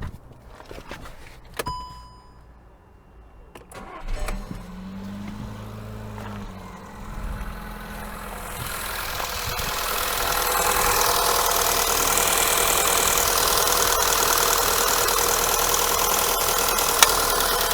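Skoda Yeti's turbocharged chain-driven 1.2 TSI petrol engine being started for the first time after a timing-chain replacement. After a few clicks, it catches about seven seconds in, grows louder over a few seconds and settles into a steady idle. It runs much softer than before, though the high-pressure fuel pump can still be heard.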